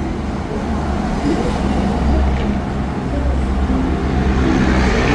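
Steady low rumble of motor-vehicle noise, growing louder with a hiss near the end.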